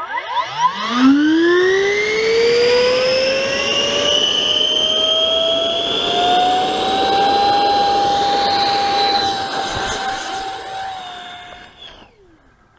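Electric ducted fan of an RC BAE Hawk model jet spooling up with a whine that climbs steeply in pitch, then holds as a steady high whine at full power. It fades away from about ten seconds in as the hand-launched plane flies off.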